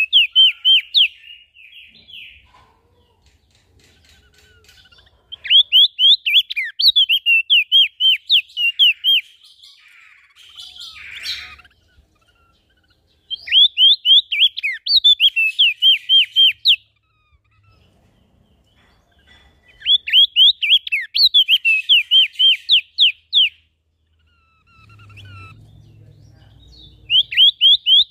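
A small songbird singing in repeated bouts of rapid, sharp upswept whistled notes, about three or four a second. Each bout lasts about three seconds, with pauses of a few seconds between them. There is a brief scratchy rustle about halfway through and a low rumble shortly before the last bout.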